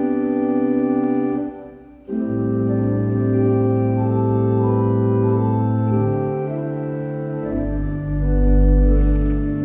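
Church organ playing slow, held chords. The sound breaks off briefly about a second and a half in, then a new chord starts. Deep pedal bass notes come in near the end.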